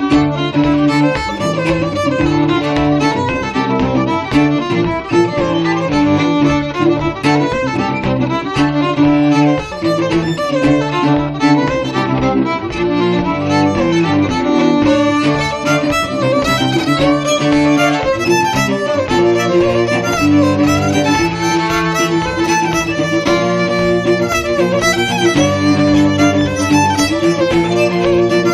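Fiddle and cello playing an Irish reel, the fiddle carrying a quick run of melody notes over sustained low cello notes.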